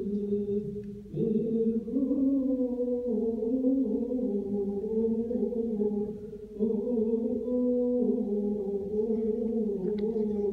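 Chant-like singing in long held notes that shift slowly in pitch, with short breaks about a second in and again after about six and a half seconds. A few faint clicks come near the end.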